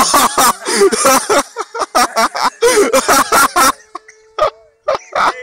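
Close human voices, talking or laughing in short choppy bursts. About two-thirds of the way in they drop away, leaving a faint steady hum under a few brief sounds.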